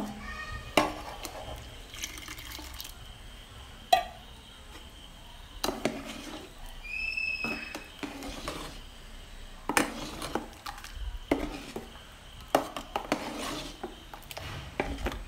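Steel ladle stirring coconut milk into mashed bananas in a metal pot, clinking and scraping against the pot with irregular knocks.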